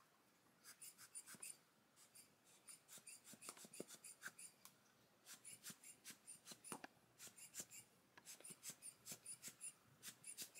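Faint, quick puffs of air from a hand-squeezed rubber air-blower bulb, about three puffs a second in short runs with brief pauses, blowing wet liquid watercolor across paper.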